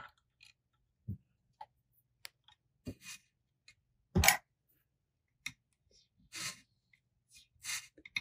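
Quiet handling noises from hand-wrapping thread onto a fishing rod blank: a few soft clicks and rustles spaced a second or so apart, the loudest about four seconds in.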